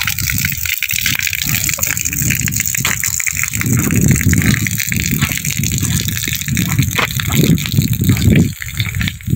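Footsteps crunching on gravel under a loud, uneven rushing noise that surges and eases from moment to moment.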